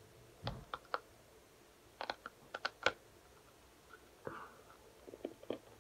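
Freeze-dried astronaut ice cream sandwich crunching in scattered sharp cracks as it is bitten and chewed; it is very hard to bite.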